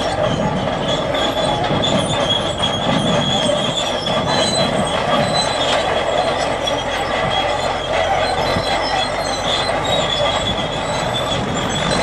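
Crawler tractor working under load pulling a multi-furrow plough: the engine runs steadily under a high, continuous squeal from its tracks.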